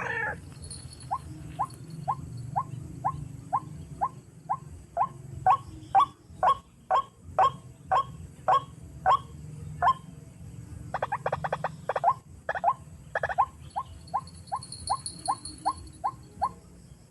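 White-breasted waterhen (ruak-ruak) calls: short clipped notes repeated about twice a second, growing louder, broken near the middle by a quick chattering run of notes, then going on again.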